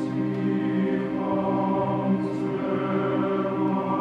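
Choir and chamber orchestra holding a slow, sustained chord, the notes steady, in a live performance of contemporary classical music.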